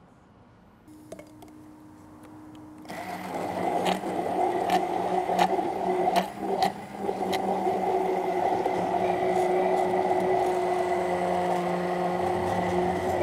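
Immersion blender in a plastic beaker blending a thick sour-cream and blue cheese dressing. The motor starts about three seconds in and runs as a steady whir, with several sharp knocks in its first few seconds.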